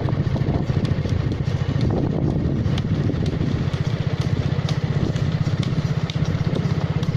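Small motorcycle engine running steadily with a fast, even exhaust pulse, with a few faint sharp clicks over it.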